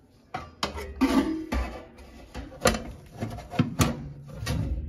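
Close handling noise: a string of irregular knocks, clunks and rattles of metal furnace parts and fittings being worked by gloved hands, with several sharp clanks, a few of them briefly ringing.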